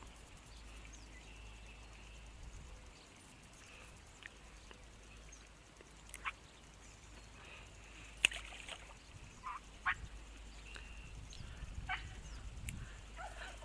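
Faint open-air background with a few short, high animal calls scattered through it, and a single sharp click about eight seconds in.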